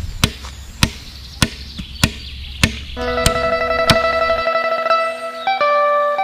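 Machete chopping into a wooden post, a sharp chop about every 0.6 s for the first four seconds. From about three seconds in, plucked guitar music plays over it.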